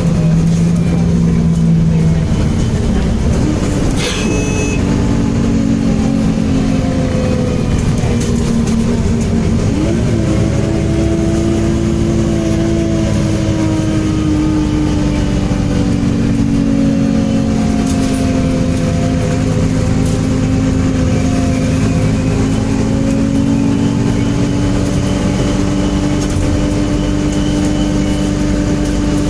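MAN Enviro 300 single-deck bus's diesel engine running under way, its pitch rising and falling slowly as the bus drives. A brief high-pitched tone sounds about four seconds in.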